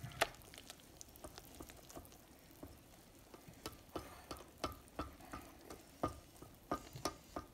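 Silicone whisk stirring cake batter in a stainless steel mixing bowl, with faint irregular taps and clicks of utensils against the bowl, coming more regularly from about halfway through.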